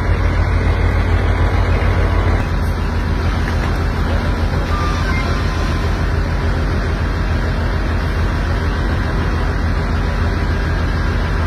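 Loud, steady low rumble of a running engine, with a slight change in its sound about two and a half seconds in.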